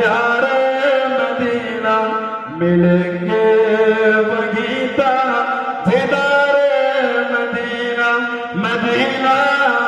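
A man singing a naat, an Islamic devotional song in praise of the Prophet, solo into a microphone, with long held notes that bend up and down.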